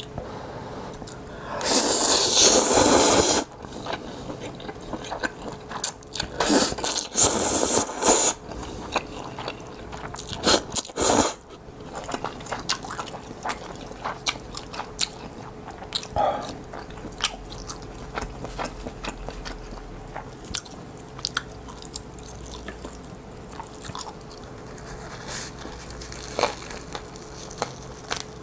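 Close-miked eating sounds: loud slurps of ramen noodles a couple of seconds in and again around seven and eleven seconds in, then wet chewing with many small clicks and smacks, and a bite into a gimbap roll near the end.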